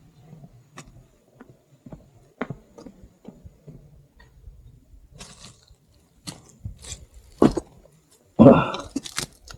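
Footsteps crunching and rustling through dry grass and brush, in scattered irregular steps, with a louder rustle about three-quarters of the way through.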